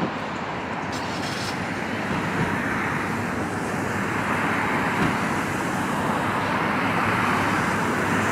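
Steady road-traffic noise from cars going by, their tyres running on wet pavement.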